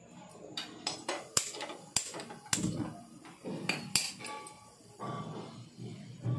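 A series of sharp clicks from a handheld spark gas lighter as a gas stove burner is lit under an iron kadhai, with a soft rumble of the burner between clicks.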